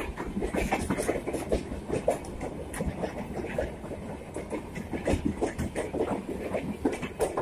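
Humsafar Express LHB passenger coaches rolling past, their wheels clattering over the rail joints in a run of irregular clicks over a continuous low rumble.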